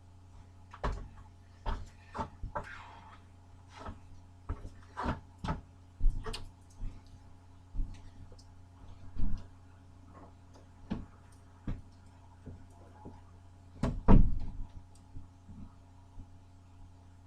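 Irregular knocks, clicks and bumps of someone moving about and handling things, with one louder thump late on. A low steady hum runs underneath.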